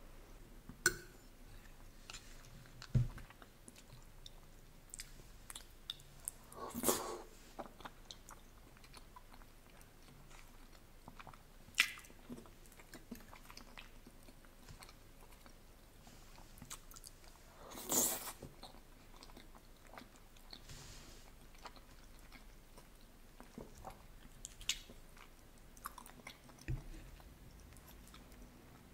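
Close-miked eating sounds of soft ricotta ravioli in tomato sauce being chewed, with scattered short clicks and wet mouth noises. Two longer, louder wet bursts come partway through.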